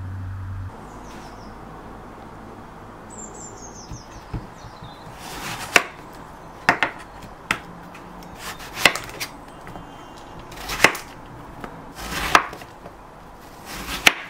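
Chef's knife slicing a courgette on a wooden chopping board: sharp knocks of the blade meeting the board, about one a second, starting a little over a third of the way in.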